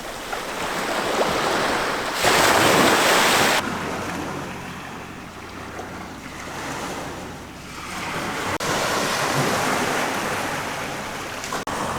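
Ocean surf washing in on a rocky shore, swelling and fading, with wind on the microphone. The loudest surge comes about two seconds in and lasts about a second and a half.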